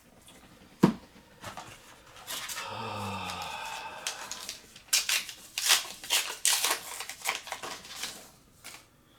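A trading-card booster pack being opened. A sharp tap comes about a second in, then a drawn-out rasping tear, then a run of crackling from the wrapper and the cards being handled.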